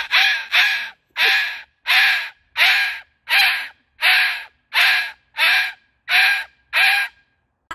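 Moluccan cockatoo giving a steady run of eleven harsh, rasping squawks, about three every two seconds, in imitation of a car engine cranking over and failing to start.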